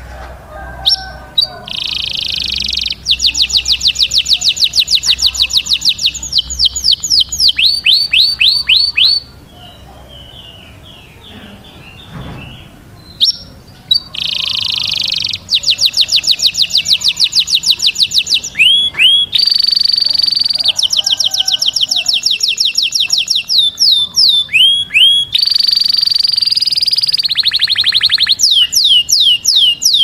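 Male domestic canary singing: long phrases of very rapid trills and quick falling sweeps, broken by a pause of a few seconds about nine seconds in, then resuming to the end.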